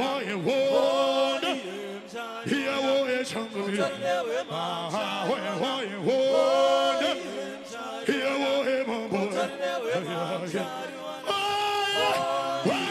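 Voices singing a chant-like song in harmony, with several long held notes.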